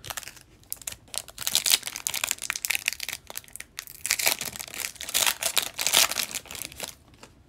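Foil wrapper of an O-Pee-Chee Platinum hockey card pack crinkling and tearing open by hand, in two long spells of crackling.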